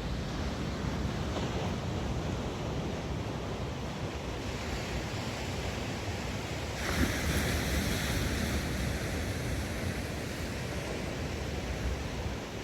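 Sea waves washing against a rocky shore, with wind buffeting the microphone as a steady low rumble. About seven seconds in, a louder hissing rush swells for a couple of seconds, then eases.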